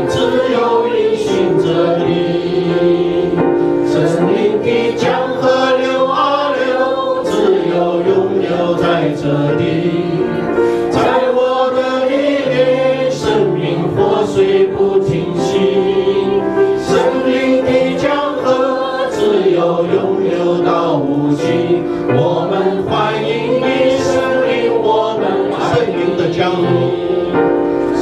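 Worship team and congregation singing a Mandarin worship song together, male and female voices, over piano accompaniment.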